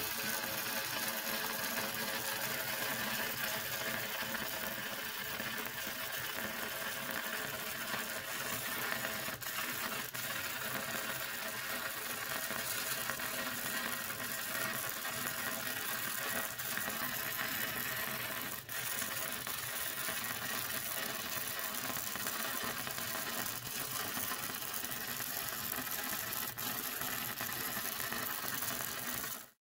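MIG welder arc running steadily as a bead is laid on steel pipe, with a short break about two-thirds of the way in, then cutting off just before the end.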